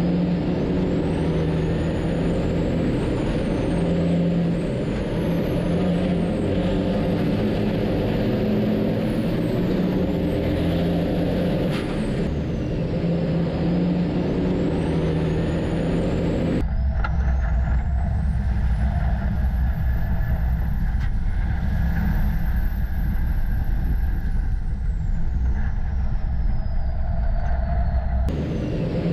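Racing semi-trucks' diesel engines running hard on the track, a dense rumble with high whines gliding up and down above it. About two-thirds of the way through the sound changes abruptly to a deeper, heavier rumble with a whine that rises, holds and then falls away.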